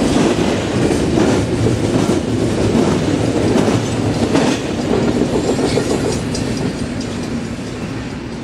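BNSF double-stack container train's cars rolling past, a steady rumble with irregular clicks from the wheels crossing rail joints, growing quieter over the last few seconds.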